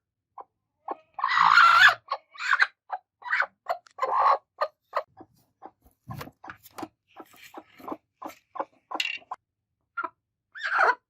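Angry broody hens making a run of short, harsh clucks and growls, with a loud raspy squawk about a second in: the defensive noise of hens sitting on a nest.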